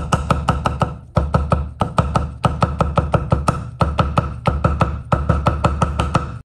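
Chinese cleaver chopping luncheon meat into fine strips on a thick wooden chopping block: rapid, even chops about five or six a second, in short runs with brief pauses, stopping abruptly at the end.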